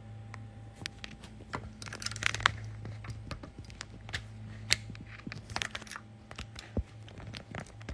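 Handling noise of a phone being moved and repositioned: scattered rustles and sharp clicks over a steady low hum.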